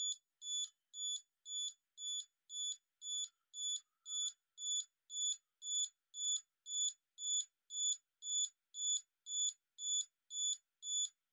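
Olympus OM-10's electronic self-timer counting down: a steady high-pitched beep repeating about twice a second. At the very end the shutter fires with a sharp click.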